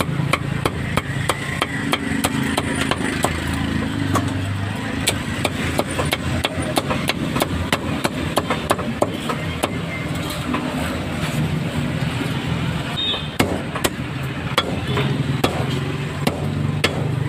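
Cleaver chopping meat on a chopping block: a long run of sharp strikes, about three a second, over a low street background hum.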